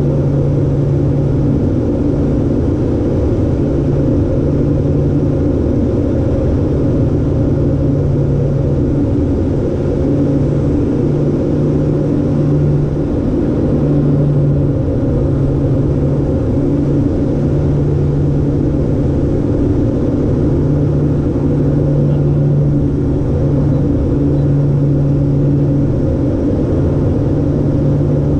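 LET L-410's twin turboprop engines and propellers droning steadily in descent, heard inside the cockpit. The low propeller hum swells and fades slightly and irregularly.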